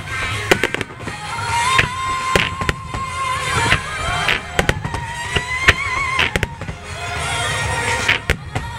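Fireworks display with aerial shells and low-level devices bursting: many sharp bangs in quick succession, several a second.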